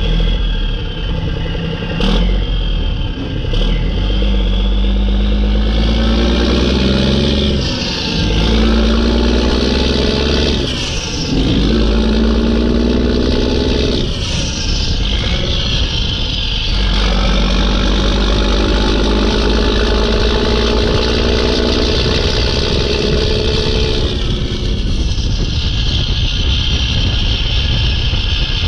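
Mack E7 inline-six turbo diesel in a truck pulling away and revving up through about four gear shifts, the engine pitch climbing and then dropping at each shift. A loud turbo whistle rises and falls with the revs, then holds as a steady high whine near the end, when the engine settles.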